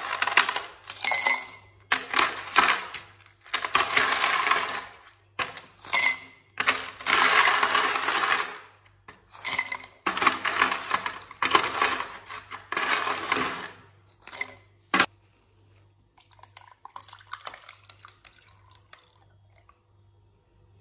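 Ice cubes being cracked out of a plastic ice tray and clattering into a glass mug, in repeated bursts, with one sharp knock about fifteen seconds in. Near the end, faint pouring of lemon juice over the ice.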